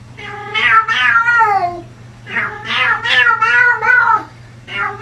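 Domestic cat meowing loudly in a run of long, drawn-out yowls, three calls that each bend up and then fall in pitch at the end.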